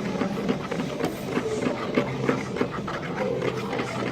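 Glue, liquid soap and eye-drop slime mixture being stirred in a container, a quick irregular run of sticky clicks and taps as it clumps together.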